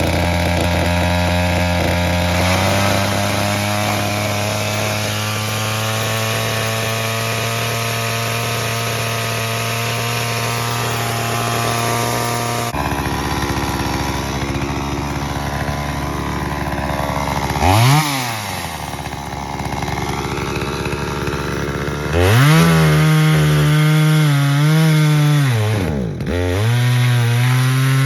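ProRun 45 cc two-stroke chainsaw engine running at a steady fast idle while it warms up after a cold start. About two-thirds in it is revved once briefly, then it is revved high with a wavering pitch that dips once for a moment near the end.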